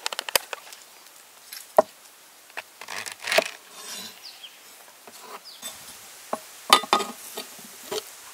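Hands handling white beech mushrooms at a wooden board: a few sharp taps and knocks with short rustles as they are lifted from a bowl and set down, and a clay pot lid knocked near the end. Faint steady insect buzzing underneath.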